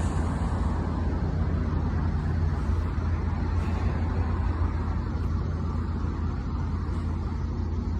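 Diesel locomotive engine running, a steady low rumble.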